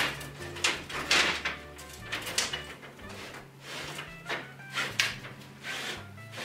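Wooden boards scraping and knocking against one another as they are slid out of an overhead lumber rack, in a series of short scrapes. Background music plays underneath.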